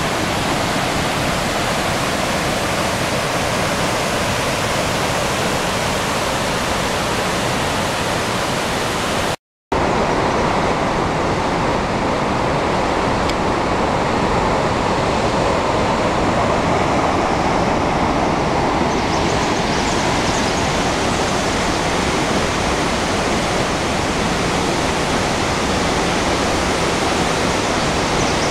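Rushing water of a rocky forest creek and a waterfall: a loud, steady wash of noise. It cuts out for a moment about nine seconds in and resumes, fuller in the middle range.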